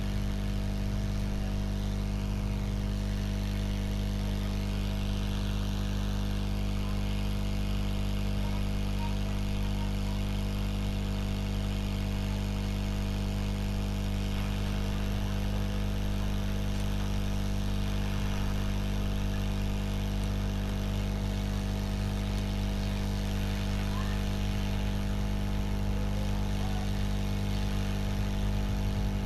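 Hot air rework gun running steadily, a constant motor hum with a hiss of blown air, as it heats a phone's charging jack to melt the solder and set it in place.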